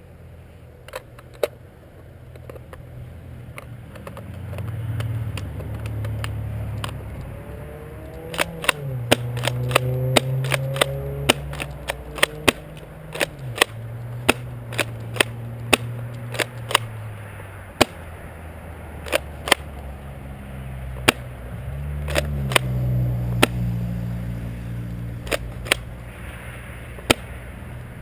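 Airsoft gunfire: dozens of sharp shots, some spaced apart and some in quick runs. Beneath them a low motor hum rises and falls in pitch.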